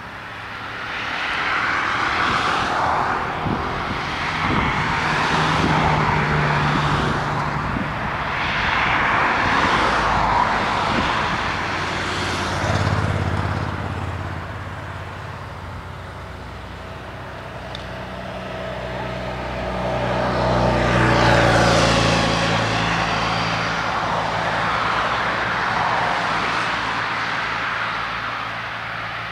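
Vehicles passing by, the noise swelling and fading several times, loudest about two-thirds of the way through.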